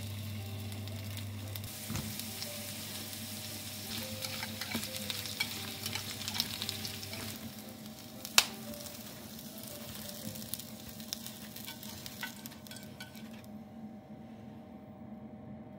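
Potato slices shallow-frying in oil in a small rectangular pan, a steady crackling sizzle that dies down near the end. A single sharp knock about eight seconds in.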